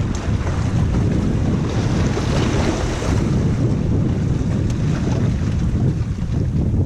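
Wind buffeting the microphone with a dense, gusty rumble, over sea waves washing against the rocks; a louder wash of surf swells about two to three seconds in.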